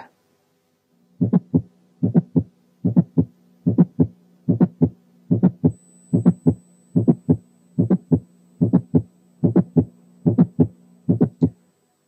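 Recorded heart sounds: in each beat the first heart sound, a mid-systolic click, then the second heart sound, with no murmur between them. They repeat steadily about 13 times, at roughly 75 beats a minute, over a faint steady hum. The click is the kind heard in mitral valve prolapse.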